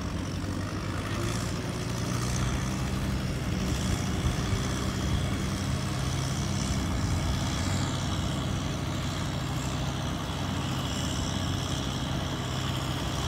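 Diesel tractor engines running steadily under load as a Kubota M108S four-wheel-drive tractor hauls a rice-laden Kubota RT140 two-wheel tractor through deep mud.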